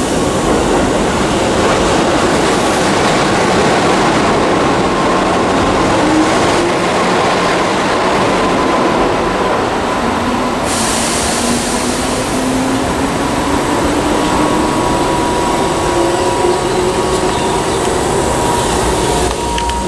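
Keihan 8000 series electric train pulling out of the platform and gathering speed, its wheels running on the rails with a rumble and a motor whine that rises slowly in pitch as it accelerates.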